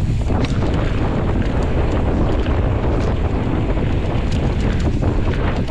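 Mountain bike coasting fast down a dirt singletrack: heavy wind noise on the camera microphone over the rumble of knobby tyres rolling on dirt and dry leaves, with scattered small knocks and ticks from the bike over bumps.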